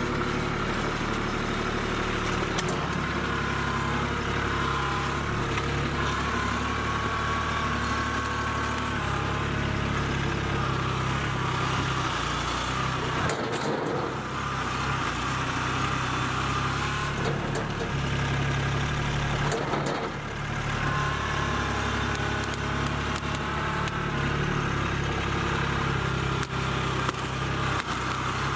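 Kubota B2261 compact tractor's three-cylinder diesel engine running steadily while the front loader digs into soil, dipping briefly twice.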